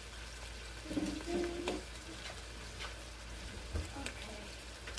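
Egg base cooking gently in a frying pan on low heat: faint, steady sizzling with scattered small crackles. A short, soft sound comes about a second in.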